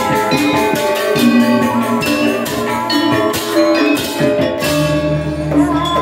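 Balinese gamelan playing: bronze-keyed metallophones struck with mallets in quick strokes that ring on, with hand cymbals. A low held tone comes in about five seconds in.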